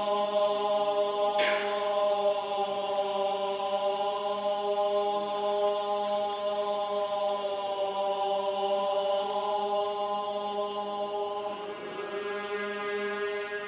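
Buddhist monks chanting in unison on a steady, held pitch. About a second and a half in, a brief metallic clatter of coins dropped into the temple's offering box, with a few faint clicks later.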